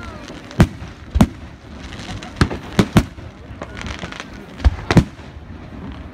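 Aerial fireworks shells bursting: about seven sharp bangs at irregular intervals, some in quick pairs.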